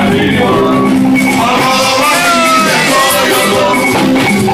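Loud live Afro-juju band music with a man singing into a microphone over it.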